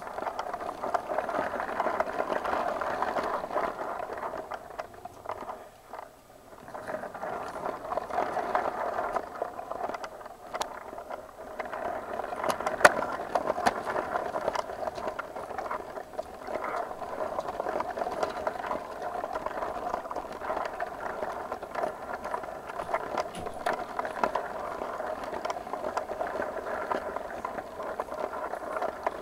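Lego train's small electric motor and wheels running on plastic track: a steady rattling whir that starts right at the beginning, with scattered sharp clicks and a brief drop in level about six seconds in.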